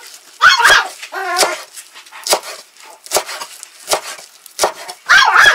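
A kitchen knife chopping parsley on a wooden cutting board, a sharp chop every second or less. A dog barks about half a second in, again about a second in, and once more near the end; the barks are the loudest sounds.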